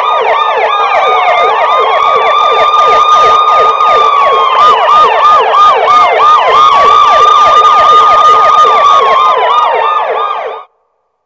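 Electronic emergency-vehicle siren: a fast yelp of about four sweeps a second layered over a slower wail that holds high, falls and climbs back. It cuts off suddenly near the end.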